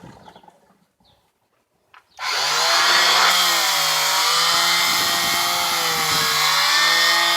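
Handheld electric power tool starting up about two seconds in, then running steadily with a high motor whine, its pitch dipping and wavering a little as it is worked.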